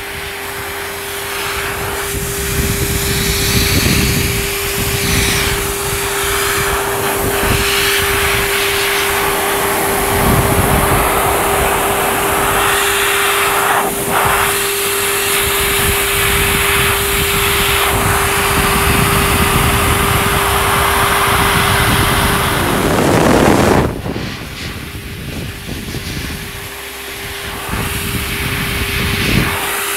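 Dog grooming blow dryer running, its airflow rushing against a wet poodle coat with a steady motor whine under it. The whine stops for a moment about three-quarters of the way through and then comes back, with the dryer quieter after that.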